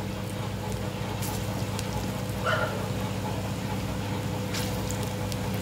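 Potato and onion pakoras sizzling and crackling steadily as they deep-fry in hot mustard oil in a kadhai.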